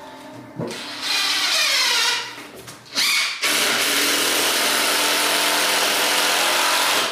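A corded DeWalt power tool running against wood. It runs for about a second, eases off, then runs steadily for the last three and a half seconds before cutting off abruptly.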